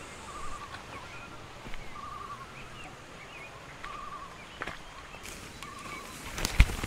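Forest birdsong: one bird repeats a short wavering call about every two seconds among scattered higher chirps. Near the end come a few sharp crunches of footsteps on dry leaf litter.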